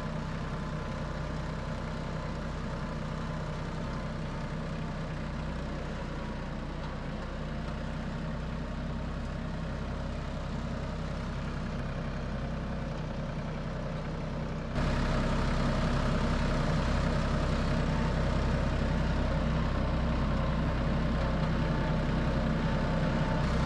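Compact tractor's engine running steadily, getting suddenly louder about two-thirds of the way through.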